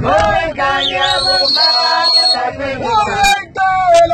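Voices singing a song together, held notes rising and falling, over the low rumble of a vehicle.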